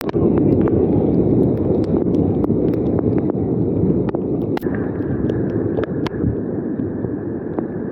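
Heavy rainstorm with strong wind: a loud, dense rumble of wind on the microphone and rushing water, with scattered sharp ticks of impacts throughout.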